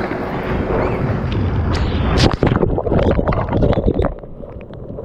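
Sea water splashing and sloshing against a bodyboard and action camera at water level as the rider paddles by hand, with a run of sharp splashes in the middle. Near the end the sound turns duller and quieter as the camera dips into the water.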